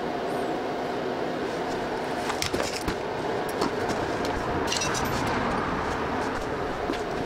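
A steady mechanical hum with a few light clicks and knocks scattered through its middle.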